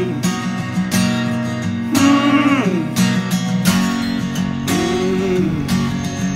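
Background music: a song carried by strummed acoustic guitar with a steady rhythm.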